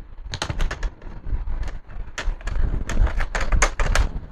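Irregular sharp clicks and taps from handling the laptop's parts during the repair.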